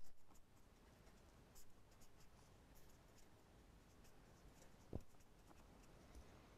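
Faint scratching of a pen writing on paper in short strokes, with one soft knock about five seconds in.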